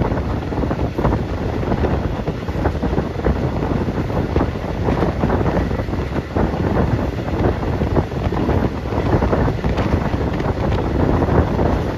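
Wind buffeting the microphone, a loud, unbroken rushing rumble that wavers in strength, heaviest in the low end.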